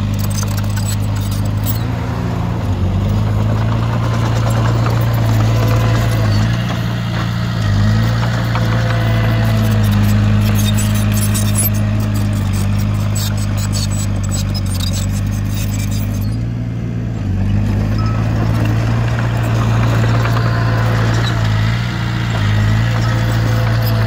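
Heavy diesel engine of earthmoving machinery running with a steady low drone, its note shifting briefly a few times.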